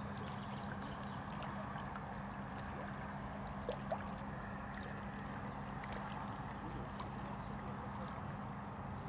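A distant engine's steady low drone over an outdoor background hiss, with two soft knocks close together about four seconds in.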